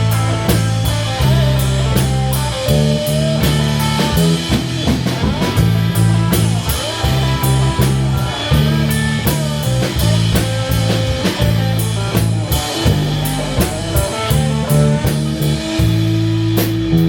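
Instrumental break of a blues-rock band: electric guitar, bass and drum kit playing, without vocals.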